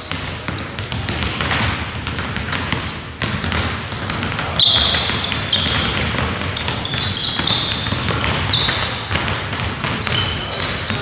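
Basketballs bouncing on a gym floor, many sharp bounces in no steady rhythm, mixed with short high squeaks of sneakers on the court.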